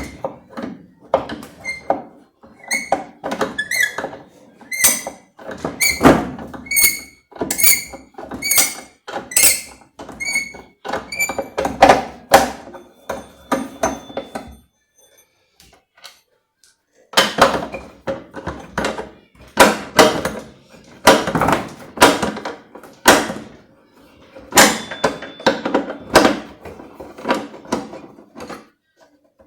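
Repeated metallic knocks and clinks, about two a second, each with a short ring, from a 13 mm wrench working the bolts around the shaft of a washing machine's drive mechanism. There is a pause of a couple of seconds about halfway.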